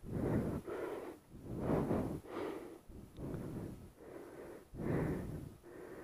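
A person breathing hard close to the microphone, a loud breath in or out about every second.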